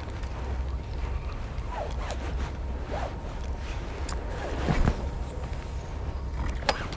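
Spinning reel being cranked as a lure is retrieved, with scattered short squeaks and clicks and a louder rustle about two-thirds of the way through. Wind rumbles on the microphone throughout.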